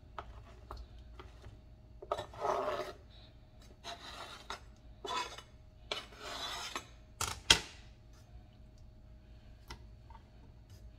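Knife scraping cut potato pieces across a cutting board in several short rasping strokes, then two sharp knocks, the second the loudest with a brief ring.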